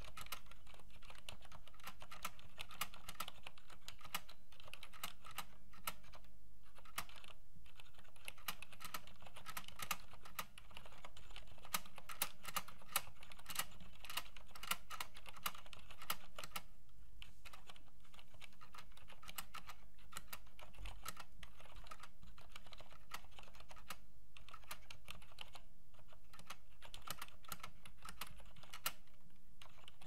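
Continuous typing on a Cherry MX Silent Keyboard (G80-3494) fitted with Cherry MX Silent Red switches: a steady run of soft keystrokes, the switches dampened against noise both when a key bottoms out and when it springs back.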